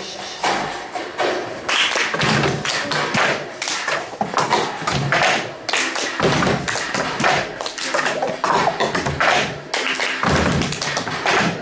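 Fast, dense percussive tapping and slapping in a quick, uneven rhythm, with many sharp strikes in close succession.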